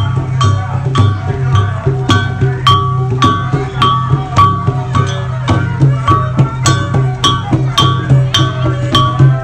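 Lively music with a fast, steady beat of sharp, clicking percussion over a continuous low bass line.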